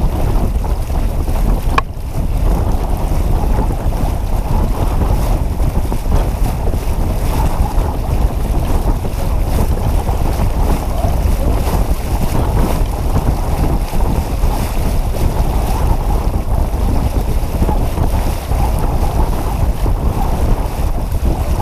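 Steady wind buffeting the microphone aboard a sailboat under way, with water washing along the hull.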